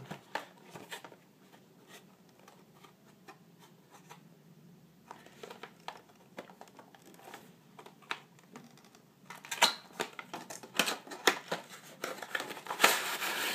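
Small clicks, taps and rustles of a fingerboard deck and its packaging being handled on a table. Sparse at first, then a dense run of sharp clicks and rustling over the last few seconds.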